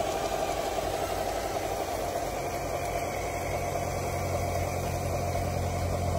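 Radio-controlled model Caterpillar D9 crawler running steadily while it tows a loaded log trailer. A low, steady hum from its drive grows stronger about a second in.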